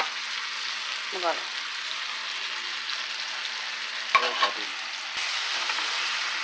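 Long beans, bell peppers and mushrooms sizzling in a frying pan while being stirred and turned with a spatula, with a couple of sharp clicks. Short snatches of a voice sound about a second in and again around four seconds in.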